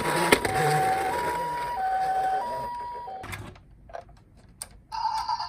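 Toy ambulance minicar's electronic siren sounding the Japanese ambulance two-tone "pee-poh" pattern, alternating high and low tones of about two-thirds of a second each, with two sharp clicks at the start. The siren cuts off about three seconds in, a few faint clicks follow, and another electronic tone starts near the end.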